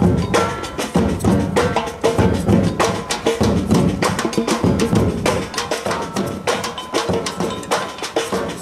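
Drum-led music: a fast, steady rhythm of drum and percussion hits, accompanying a fire-spinning dance.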